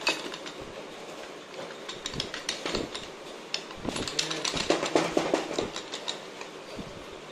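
Metal clutch parts of a Bajaj Pulsar 150 engine clinking and knocking by hand as the clutch center and plates are fitted onto the hub: quick light clicks in two busy stretches, one about two seconds in and a longer one from about four seconds in.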